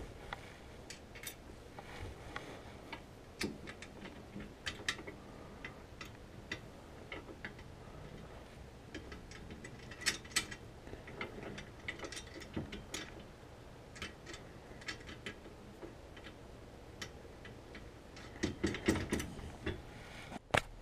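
Ratchet wrench clicking in short irregular runs, with small metal clinks and knocks, as bolts are tightened on a steel winch mounting bracket. The clicks are busiest about halfway through and again near the end.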